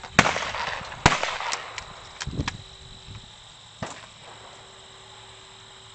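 Two shotgun shots about a second apart, each trailing off in an echo, followed by a few light clicks and knocks as a shotgun is loaded with a shell.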